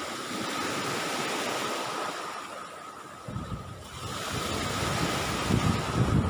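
Sea surf washing on the shore, with wind buffeting the microphone. The wind grows stronger about halfway through.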